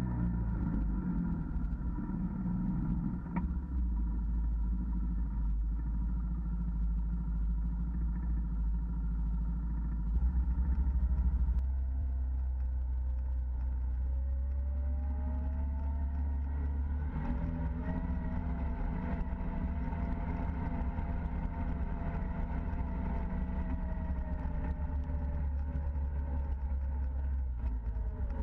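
Side-by-side UTV engine running steadily while driving along a dirt trail, with a whine that rises and falls through the second half as the speed changes.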